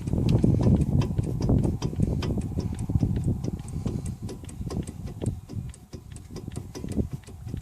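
Toyota Corolla Runx NZE121 brake caliper knocking: many quick, irregular clicks and rattles over a low rumble that fades toward the end, the sign of a loose or worn caliper.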